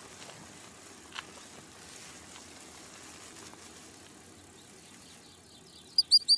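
Faint outdoor ambience with a single click about a second in, then near the end a quick run of three or four short, sharp, high-pitched chirps.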